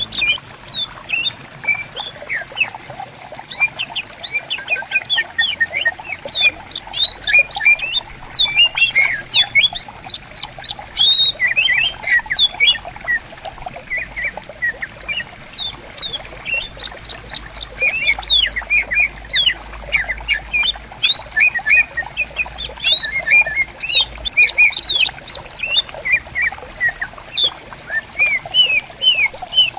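Cucak ijo (greater green leafbirds) singing and answering one another in fast, varied runs of chirps and whistles, over the faint babble of a gently flowing stream.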